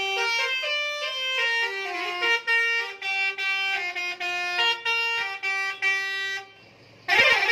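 A bus's musical horn playing a tune note by note, a reedy single melody line, which stops about six and a half seconds in. A short, loud horn blast follows near the end.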